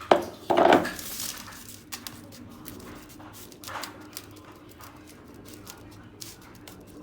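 Kitchen handling sounds as shortcrust dough goes into a tart tin: a sharp knock just after the start, a louder thud about half a second in, a brief rustle, then scattered faint taps and rustles.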